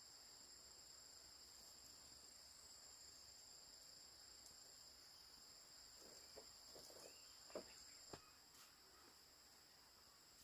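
Faint, steady high-pitched chirring of insects. Between about six and eight seconds in, a few soft knocks and clicks come over it, the sharpest near the end of that stretch.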